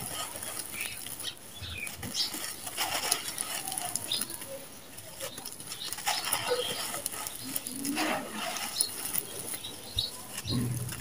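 Dry, dusty red sand-cement with small stones pouring through hands onto a heap: grains pattering and hissing, with small stones clicking. A low soft thud comes near the end as a hand handles a compacted clump.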